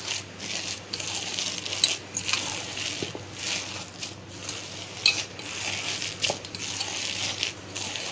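A hand squeezing and kneading coarse ground-dal vada batter in a stainless steel bowl: a run of irregular squishing strokes, with a few sharper clicks.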